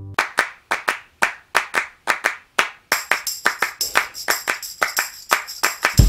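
Background music opening on a rhythmic hand-clap pattern, with a bright high shimmer joining about three seconds in.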